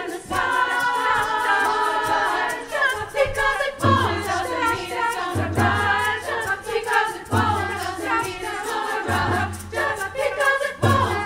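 Choir singing in chords. About four seconds in, a low part joins, holding long low notes in repeated phrases.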